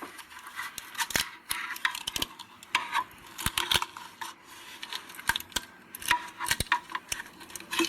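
Irregular clicks, taps and light clatter of hands working small metal parts and a cardboard template into a dive scooter's belt drive.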